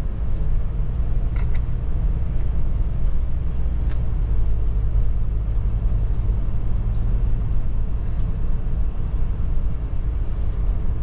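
Steady low rumble of engine and road noise inside the cab of a moving 31-foot motorhome, with a couple of faint clicks.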